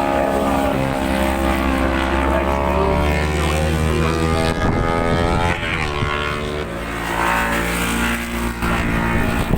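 Racing motorcycle engines at high revs, the note climbing and falling with gear changes as bikes pass; about halfway through the pitch drops sharply, then climbs again.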